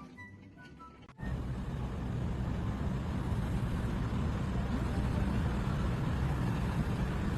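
An engine running with a steady low rumble that starts abruptly about a second in.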